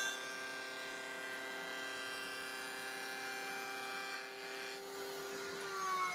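Table-mounted router with a carbide bit spinning free with nothing being cut, a steady whine of several tones. Near the end its pitch starts to fall as the motor winds down.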